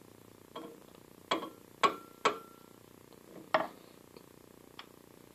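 About five sharp hammer taps on a shaft held in a lathe chuck, at uneven spacing, some leaving a short metallic ring: light blows to straighten a bent shaft.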